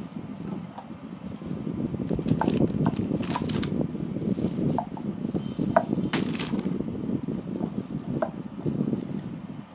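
A kitchen knife cutting into a whole roast duck over a ceramic plate while the leg is torn away, with a steady crackle and rustle of skin and meat and scattered sharp clicks and clinks of the blade, the loudest about six seconds in.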